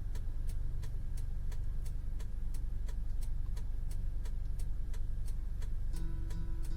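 A steady low rumble with sharp, evenly spaced ticks about three times a second; a steady tone joins near the end.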